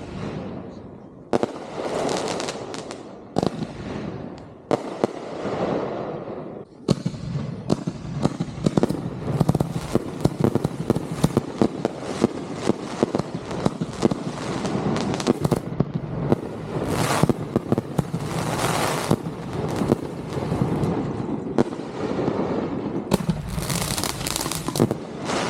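Consumer fireworks going off: a few separate bangs, each with a fading echo, in the first seven seconds, then a dense run of rapid bangs and crackling for the rest.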